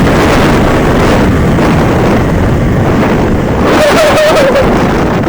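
Yamaha RX-King two-stroke single-cylinder motorcycle running at speed, its engine note under heavy wind buffeting on the microphone, with the engine pitch wavering up and down about four seconds in.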